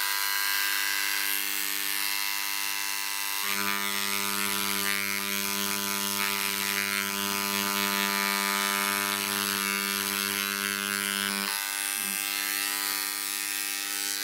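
Dremel Engraver 290-3 running at its deepest stroke setting, its carbide bit hammering back and forth at about 6000 strokes a minute as it engraves wood, a steady buzz. From about three seconds in until near the end the buzz turns deeper and heavier.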